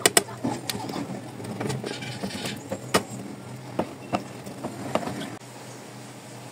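A table knife cutting a baked pizza in a metal pan, the blade scraping and clicking against the pan several times. The clicks stop about five seconds in.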